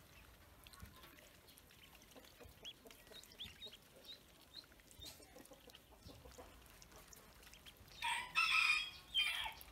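Pekin ducklings peeping softly in short, high, rising chirps. Near the end a rooster crows loudly in two parts.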